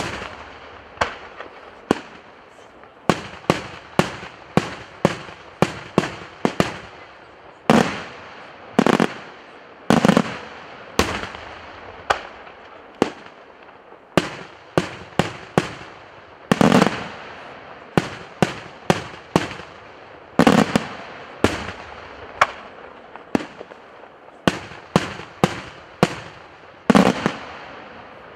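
Daytime aerial fireworks: a rapid, irregular string of sharp shell bursts and bangs, roughly one or two a second, the loudest ones trailing off in a short echo.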